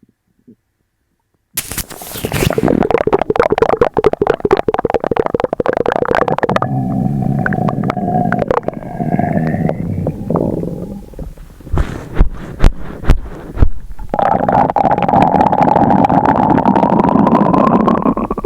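Loud stomach rumbling and gurgling from an upset stomach, brought on by sugar-free gummies. It starts suddenly about a second and a half in, with long growls full of crackly gurgles. There are a few sharp pops in the middle and a long rising growl near the end.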